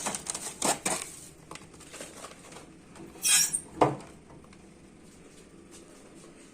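A bag of frozen pelmeni being handled: clicks and rustling at first, a crinkle of packaging about three seconds in and a knock just after it.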